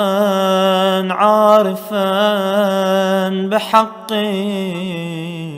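A reciter's voice chanting Arabic ziyarat in slow melodic recitation, drawing each word out into long, wavering held notes ('zā'iran', 'ʿārifan').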